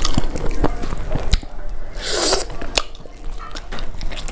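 Close-miked fingers squishing and gathering cooked rice and fried chicken pieces on a banana leaf, heard as many small sticky clicks and crackles. A short breathy hiss comes about two seconds in, and a few more mouth clicks come as the handful is lifted to the mouth near the end.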